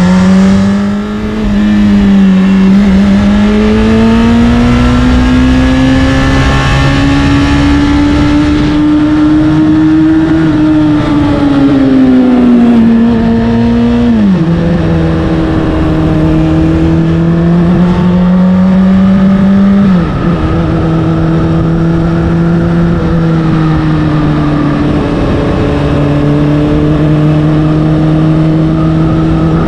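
Honda CBR600RR inline-four through an Akrapovic exhaust, pulling under throttle with its pitch climbing. About halfway through and again about two-thirds through, the pitch drops sharply at an upshift. After that it settles into a steady cruise.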